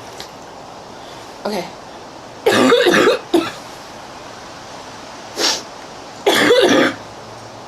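A young woman coughing hard in four fits: a long one a little before the middle, then a short one, another short one later, and a long one near the end.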